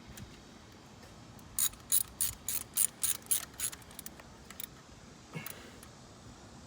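Socket ratchet wrench clicking as a spark plug is turned: a quick run of about nine clicks, roughly four a second, then two single clicks.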